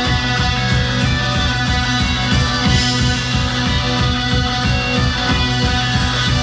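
Live rock band playing loud: electric guitars and bass over a steady, fast drumbeat.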